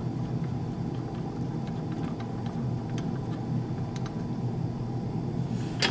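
Steady low room hum, with a few faint light clicks from fingers fitting the white Teflon nut that holds the syringe plunger on an HPLC autosampler's syringe unit.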